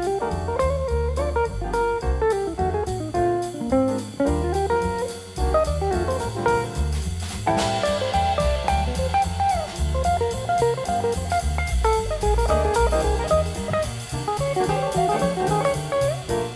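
Background music: an upbeat jazzy tune on guitar with a drum kit keeping a steady beat.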